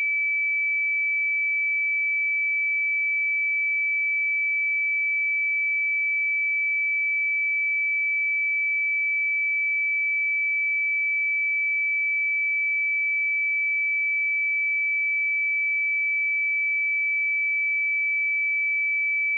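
A pure 2306 Hz sine-wave test tone, one steady high-pitched note held at a constant level.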